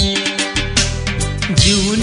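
Background music with a steady beat of plucked or strummed strokes; a singing voice comes in near the end.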